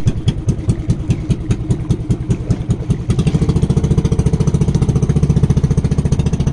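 Small boat engine of an outrigger bangka running with a fast, even putter. It grows louder and steadier about three seconds in.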